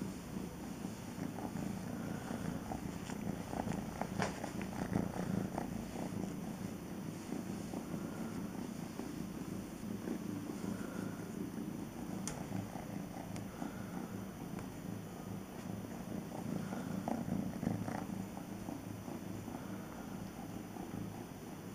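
Kitten purring steadily, a low continuous rumble, while a hand rubs it through a towel, with towel rustling now and then.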